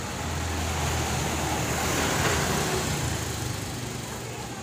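A motor vehicle passing close by on the street, its sound swelling to a peak about halfway through and then fading, over a steady low engine hum.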